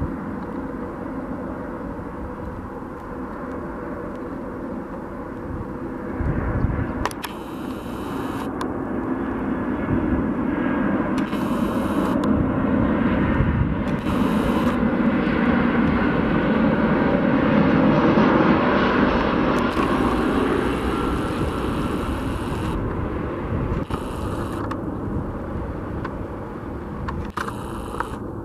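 Airbus A321-211's CFM56 jet engines on final approach, a steady rumble that builds to its loudest about eighteen seconds in and then eases off as the jet passes on toward the runway.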